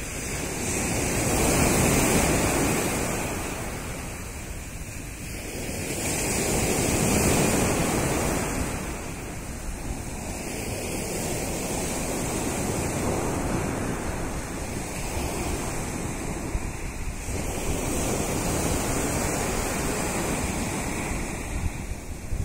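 Waves of a rough sea breaking on the shore. Two big swells wash in about five seconds apart, then the surf settles into a steadier rush.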